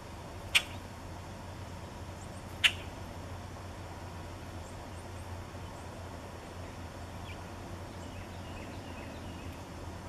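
Two short, harsh chack calls about two seconds apart, typical of a common grackle, the loudest sounds here. Faint high songbird chirps come later over a steady low rumble.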